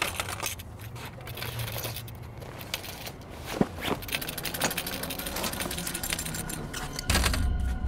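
A canvas backpack being handled and packed up, with irregular rustling, scraping and light clinking of its straps and buckles. A low rumble comes in near the end.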